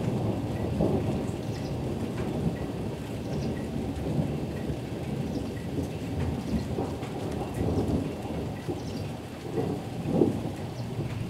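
Thunder rumbling on and off through the rain, with a louder swell about ten seconds in.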